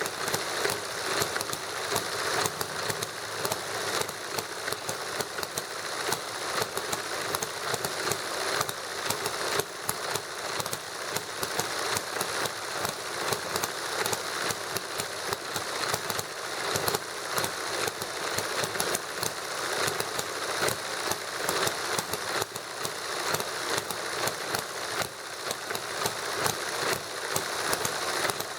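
Two small model engines running together, one a hit-and-miss style gasoline model engine: a steady, rapid, uneven clatter of clicks and firing strokes.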